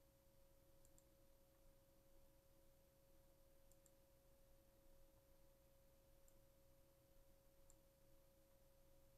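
Near silence: a faint steady electrical hum, with a few faint double clicks of a computer mouse spread through it.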